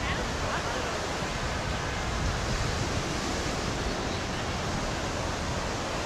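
Small waves breaking and washing up the sand in a steady hiss, with wind rumbling on the microphone and a few faint voices near the start.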